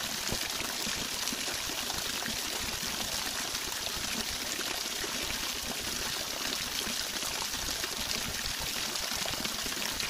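A waterfall rushing over wide, tiered rock cascades: a steady, even hiss of falling water.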